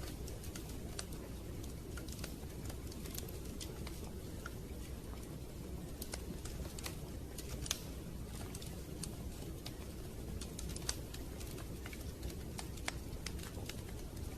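Wood fire crackling: irregular sharp snaps and pops over a steady low rumble.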